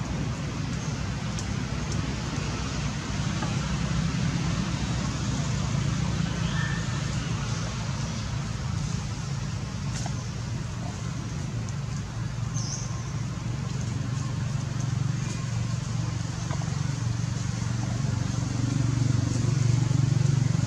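A steady low motor rumble, growing a little louder near the end.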